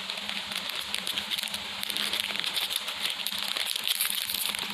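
Close-miked eating sounds of a fish-shaped ice cream: dense, rapid crisp crackles and crunches, over a faint low steady hum.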